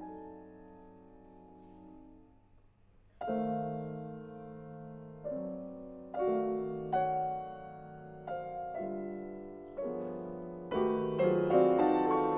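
Steinway concert grand piano playing slow solo music. A held chord dies away, there is a brief hush about three seconds in, then chords are struck one after another at uneven intervals, growing denser and louder near the end.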